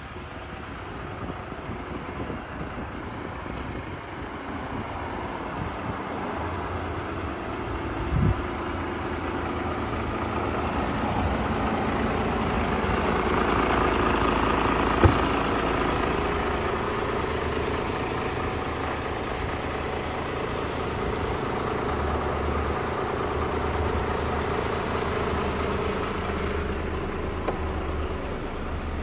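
Volvo FE320 truck's 7.7-litre six-cylinder diesel idling steadily, growing louder toward the middle and easing off again. Two brief knocks come about eight and fifteen seconds in.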